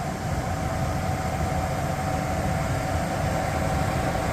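Gas furnace running: steady blower and burner noise with a low rumble and a constant hum.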